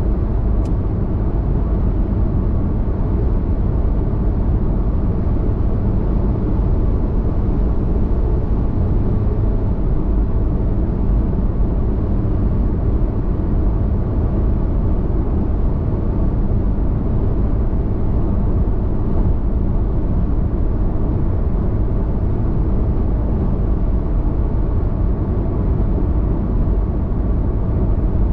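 Steady low rumble of a car cruising at highway speed, heard from inside the cabin: tyre, road and engine noise.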